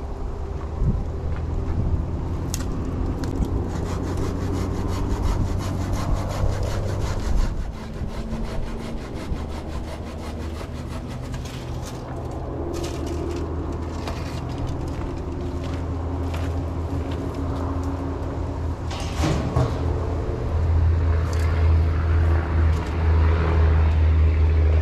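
An engine running steadily with a low hum, with irregular clicks, cracks and rattles over it. The hum gets louder near the end.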